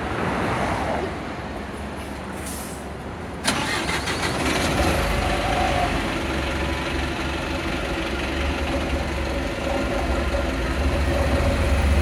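A Volvo B5TL double-decker bus's rear-mounted diesel engine starts up suddenly about three and a half seconds in, then runs with a low rumble that grows louder. The engine is making the strange knocking that is under investigation.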